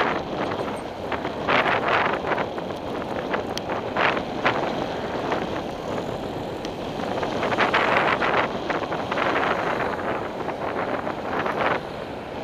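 Wind rushing over the microphone of a camera on a moving bicycle, mixed with road and traffic noise, with short knocks now and then from bumps in the road.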